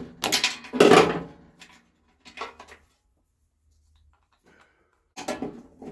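Knocks and clatter of a small machine battery and its hold-down bolts being handled and lifted out. A loud cluster comes in the first second and a half, a shorter knock follows, and a few more clatters come near the end.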